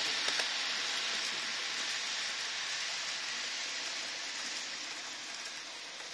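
Hornby TT:120 model train, a Peppercorn A1 locomotive hauling coaches, running on layout track: a steady rushing whirr of wheels and motor with a couple of faint clicks near the start, slowly fading as the train moves away.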